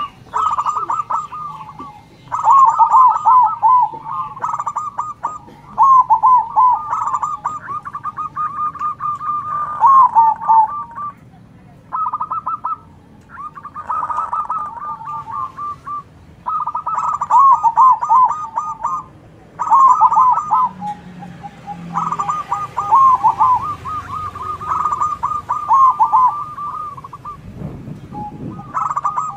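Zebra doves (perkutut) cooing back and forth: repeated phrases of rapid staccato coos, each lasting one to four seconds, with short pauses between them. Faint high twittering of small birds comes in now and then.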